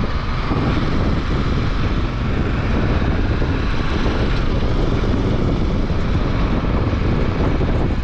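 Motorcycle being ridden: steady wind rush over the rider's camera microphone mixed with the bike's running engine and road noise.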